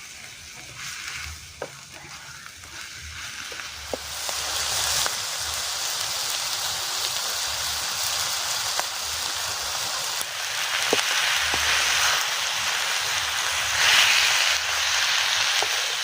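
Wild wood mushrooms frying with a steady sizzle that swells about four seconds in, with a few light clicks over it.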